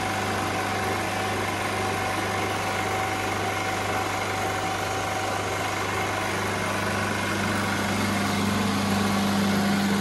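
Refrigerant recovery machine running, pulling R22 refrigerant out of an old air conditioner's outdoor unit into a recovery cylinder: a steady mechanical hum with a constant tone above it. The low hum grows a little stronger after about six seconds.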